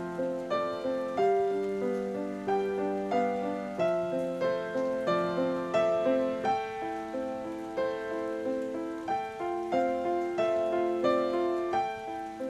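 Slow, gentle piano music: single notes and chords struck about twice a second, each ringing and fading before the next.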